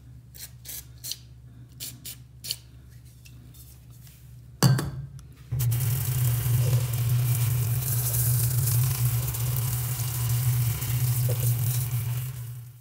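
Handheld shower sprayer jetting water onto an insect killer's metal wire grid, a steady hiss with a low hum that starts abruptly about five and a half seconds in. Before it come a few light clicks and one sharp knock.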